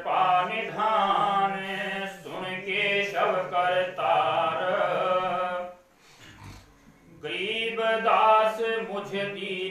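A man singing a devotional chant solo into a handheld microphone, in long held notes of a slow melody, with a pause for breath of about a second just past the middle.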